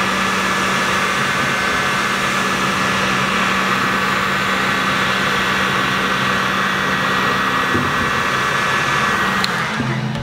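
Electric heat gun blowing steadily, a rushing noise with a low hum and a thin whine, switched off near the end; it is heating the cracked iPad 2 glass to soften the adhesive before the panel is lifted.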